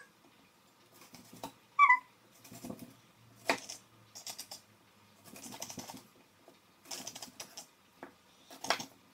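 Kitchen knife cutting and peeling vegetables by hand: irregular small clicks and scrapes of the blade. A brief high chirp sounds about two seconds in.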